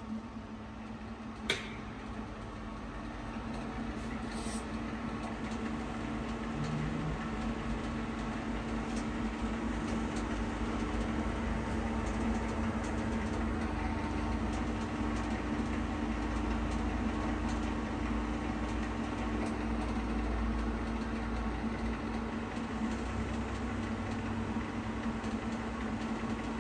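Pinacho SP/250 tool-room lathe running with its carriage under longitudinal power feed: a steady mechanical hum from the gear train and feed drive, growing a little louder over the first few seconds. A single sharp click about a second and a half in.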